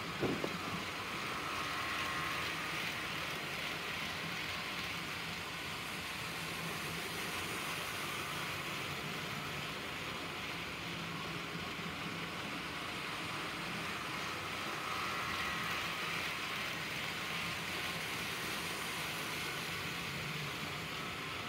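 HO scale model train running around an oval of track: a steady hum and rattle of the locomotive's motor and the cars' wheels on the rails, swelling slightly twice. A brief click about a quarter second in.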